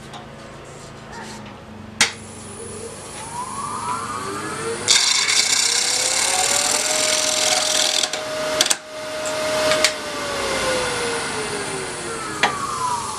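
Wood lathe (Delta 16/42) spinning up with a click and a rising hum, then a turning tool scraping into the spinning laminated bowl for about three seconds with a loud rasping hiss. A couple of sharp knocks follow, and the motor's hum falls as the lathe slows down.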